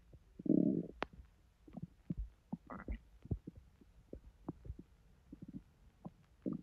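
Bowel sounds from an over-full, distended belly digesting a heavy meal: irregular gurgles and small pops, with a louder gurgle about half a second in and another a little before three seconds.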